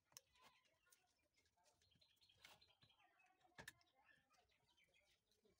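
Near silence: a few faint clicks of a screwdriver turning the screws on the back of a metal horn-speaker driver unit, with faint bird chirps in the background.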